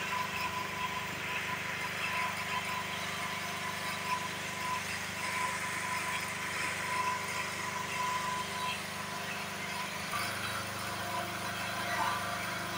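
An engine running steadily, a constant hum with a lower tone that joins in about ten seconds in.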